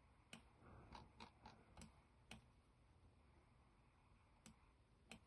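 Faint, irregular clicking of a computer mouse. There is a quick run of clicks over the first couple of seconds, a pause, then two more near the end, with near silence in between.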